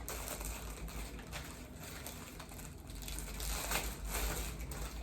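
Packaging of a set of strip false eyelashes crinkling and rustling as it is handled, louder a little past halfway.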